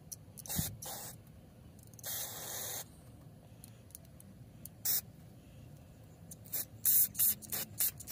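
Aerosol spray can fired through a thin red extension straw in separate short hissing bursts: two quick ones near the start, a longer one of under a second, one more in the middle, then a rapid string of short squirts near the end.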